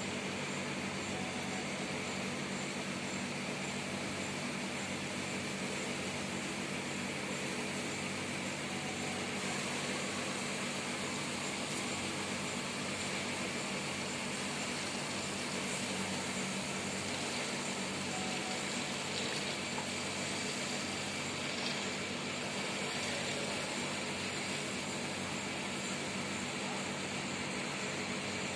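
Steady background noise, an even hiss with a low hum and no distinct events.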